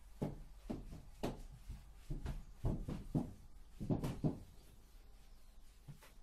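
A hand eraser wiped across a whiteboard in quick, uneven strokes, about eight of them in two runs, the last about four and a half seconds in.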